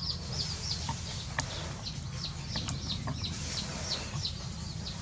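Birds chirping: a quick, steady run of short, high, downward-sliding chirps, over a low steady rumble.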